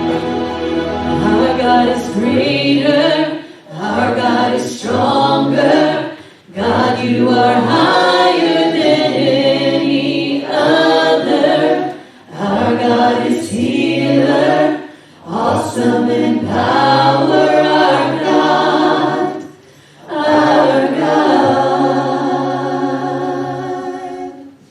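Choir singing a hymn in several-part harmony, in phrases of a few seconds with short breaks between them.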